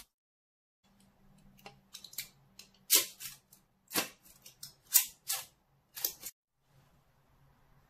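Small side cutters snipping support material off a 3D-printed plastic knuckle duster: light clicks and plastic handling, then about five sharp snaps roughly a second apart.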